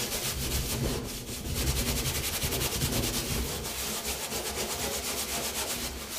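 Sponge scrubbing a stainless-steel sink deck in rapid back-and-forth strokes, rubbing at rust stains and built-up grime around the faucet holes.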